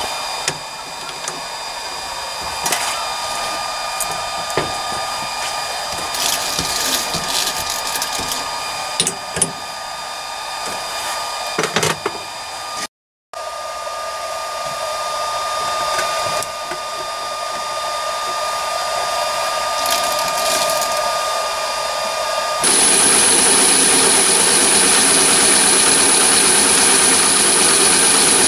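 Metal clicks and knocks from a chuck key and tools on a mini lathe chuck over a steady whirring. About 23 seconds in, the mini lathe, driven by its new three-phase motor on a VFD, is running steadily and louder, spinning the bar, with a high whine over it.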